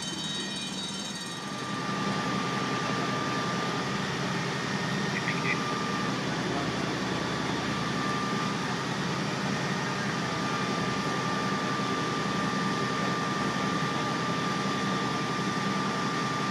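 Fire engines running steadily with their pumps engaged, a constant drone with a thin steady whine over it; it grows louder about a second and a half in.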